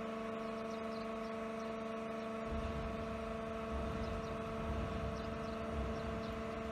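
A steady hum made of several fixed tones, with a deeper uneven rumble joining about two and a half seconds in.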